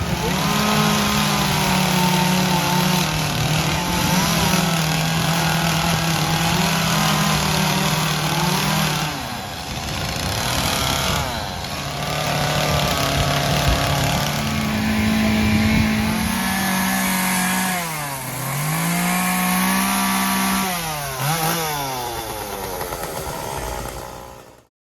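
Gas chainsaws running at high revs, their engine note holding steady, then dipping and climbing back in pitch several times; the sound cuts off abruptly just before the end.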